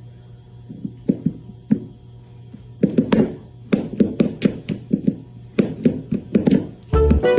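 A run of irregular sharp taps and knocks, each with a short ring, growing denser partway through, over a steady low hum; music starts near the end.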